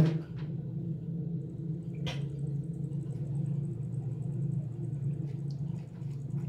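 An electric motor starts with a loud thump and runs on with a steady low hum. A short knock comes about two seconds in.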